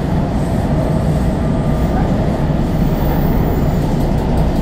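Steady low rumble inside a moving WMATA Metrorail 3000-series railcar, the noise of its wheels on the rails and its running gear.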